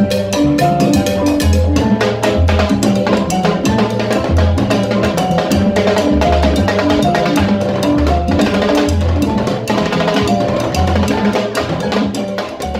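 Live salsa band playing an instrumental passage: timbales struck with sticks and congas over a repeating upright-bass line and short repeating keyboard figures, in a steady fast rhythm.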